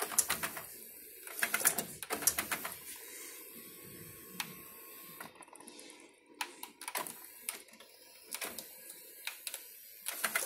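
Nakamichi RX-303 cassette deck's transport mechanism clicking and clattering. Three bursts of rapid clicks come in the first three seconds, then single clicks every second or so.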